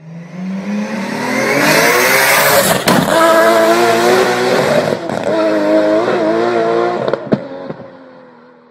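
Car engine revving up, then held at high revs with small blips, before fading away near the end; a few sharp clicks cut through it, the loudest about seven seconds in.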